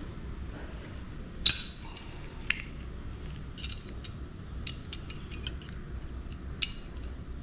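Sharp metallic clicks and clinks from hand-held plate-bending pliers gripping and bending a metal reconstruction plate, putting a reverse C side-bend into one end of it. The loudest click comes about a second and a half in, with a quick run of lighter clicks near the middle and another strong click near the end.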